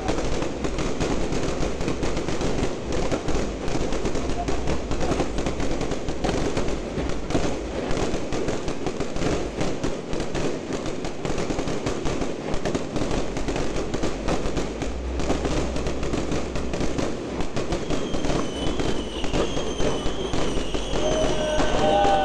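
A dense fireworks barrage: aerial shells bursting and crackling continuously, the reports overlapping with no gap. A few whistling glides come in near the end.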